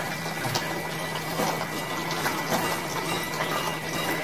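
Water running in a steady, even rush, with a constant low hum underneath.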